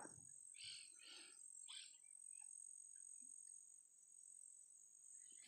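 Near silence: a faint, steady, high-pitched insect chorus, with a few soft voice-like sounds about a second in.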